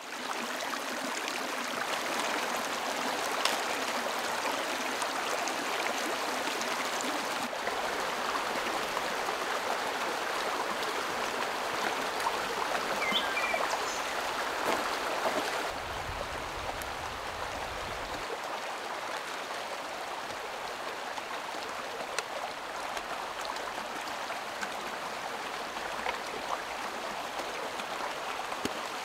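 Shallow mountain creek running over rocks and small cascades: a steady rush of water, a little quieter in the second half.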